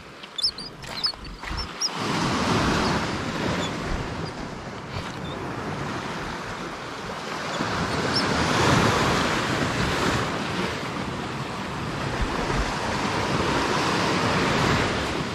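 Sea surf washing in on a rocky shore, swelling and easing in slow surges every five or six seconds, with wind buffeting the microphone. A few sharp clicks sound in the first two seconds.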